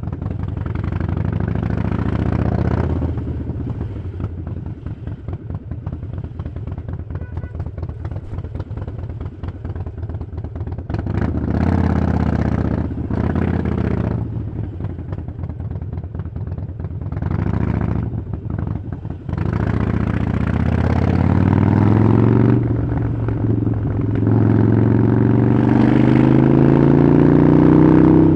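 Harley-Davidson Iron 883's air-cooled V-twin through a Vance & Hines exhaust. It rumbles at low revs with uneven firing pulses, takes several short bursts of throttle, then climbs in a long rising rev toward the end.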